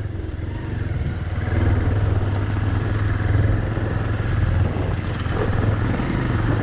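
Bajaj Pulsar 220F motorcycle's single-cylinder engine running steadily while being ridden, growing a little louder about a second in.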